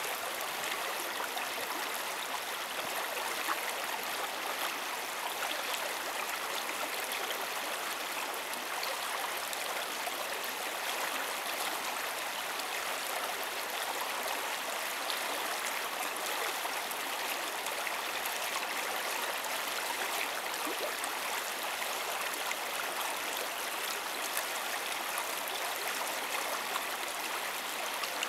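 Open stream water flowing steadily: an even, continuous rush of running water with little low rumble.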